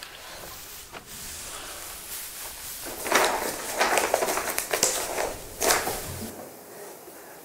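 Sheets of paper rustling as manuscript pages are turned and shuffled on a wooden table: a run of loud, rustling bursts starting about three seconds in and lasting about three seconds, after a faint click about a second in.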